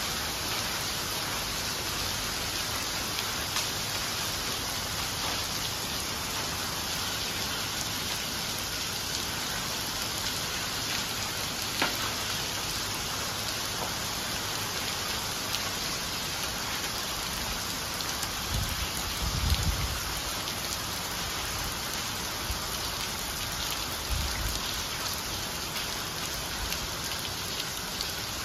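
Heavy downpour pouring onto flooded pavement and tiled roofs: a dense, steady hiss of rain with scattered sharper ticks of drops, and a few low rumbles about two-thirds of the way through.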